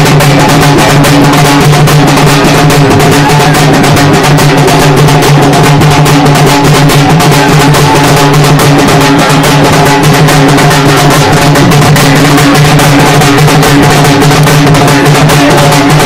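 Halgi (halage) frame drums played together in a loud, fast, unbroken rhythm.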